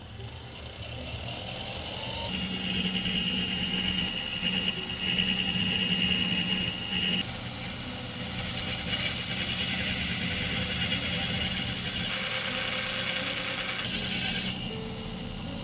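Inverter-driven belt grinder starting up, its motor whine rising as it comes up to speed, then running steadily. From about eight seconds in to near the end, a steel knife is pressed against the moving abrasive belt, and a harsh grinding hiss of metal on belt runs over the motor.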